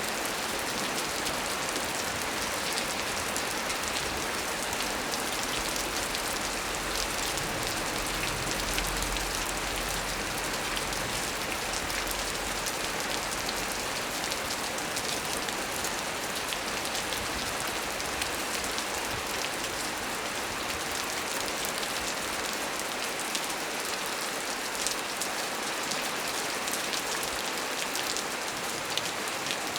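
Heavy rain falling steadily on a small tree, a dense even hiss dotted with crisp drop impacts. A faint low rumble swells and fades near the middle.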